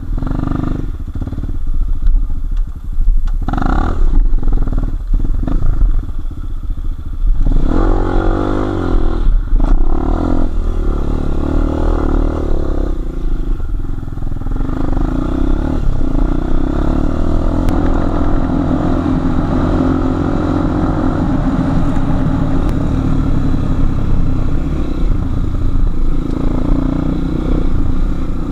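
Enduro motorcycle engine running and revving as the bike is ridden over rough ground. The pitch rises and falls with the throttle, with scattered knocks and rattles from the bike.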